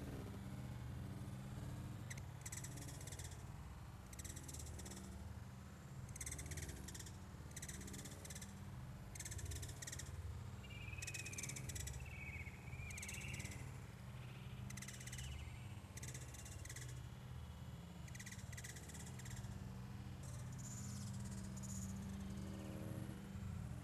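Outdoor ambience of calling insects: short, high, buzzy trills repeating about once a second, with a few bird chirps in the middle, over a steady low hum.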